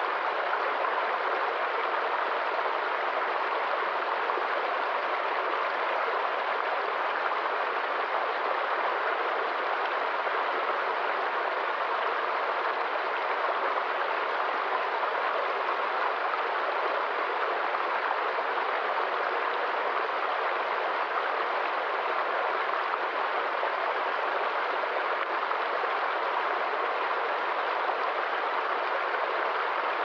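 Small stream tumbling down a short cascade over rocks: a steady, even rush of water.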